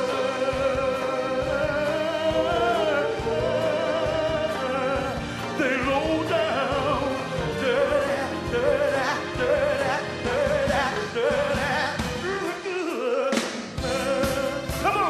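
A male soul singer sings live into a microphone over a band with drums and electric guitars, holding notes with a wide vibrato. The band's low end drops out for a moment about two seconds before the end.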